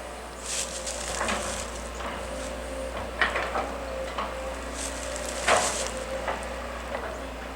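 Dry brush and branches crackling and snapping in irregular bursts, over a steady hum of distant machinery.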